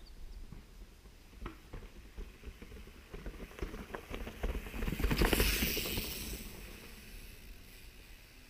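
Mountain bike coming down a rocky trail and passing close by: scattered knocks and clatter of tyres and frame over stones, building to a rush about five seconds in, then fading away.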